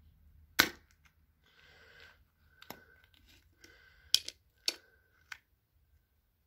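A spring-loaded desoldering pump firing with about six sharp snaps, as it sucks molten solder off the joints of a battery circuit board. The first snap and one about four seconds in are the loudest, and there is a soft hiss between them.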